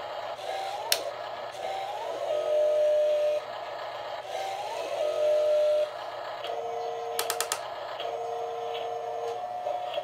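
Electronic engine and hydraulic sound effects from a Double E F-96 RC skid steer loader's built-in speaker as its loader arm goes up and down: a tone that rises in pitch and then holds steady, several times over. A quick run of sharp clicks comes about seven seconds in.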